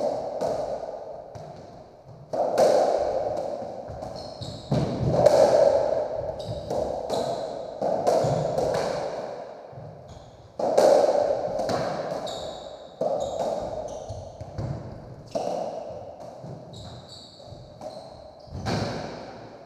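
Racketball rally on a squash court: the hollow rubber ball struck by rackets and smacking off the walls and floor about every one to two seconds, each shot ringing with a long echo in the enclosed court. Short shoe squeaks on the wooden floor come between the shots.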